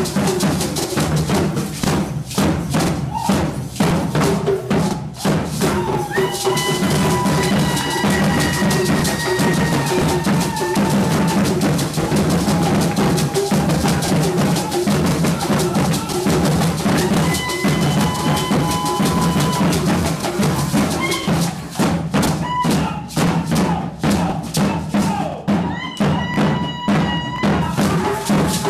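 Ghanaian drum ensemble playing Bamaya dance drumming, a dense rhythm of drum strokes over a deep bass drum. A held, high tone sounds over the drums several times.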